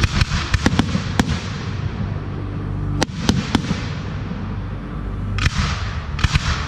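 Fireworks display: firework shells bursting with a quick run of sharp bangs in the first second or so, a few more bangs about three seconds in and again near the end, with crackle and echo between.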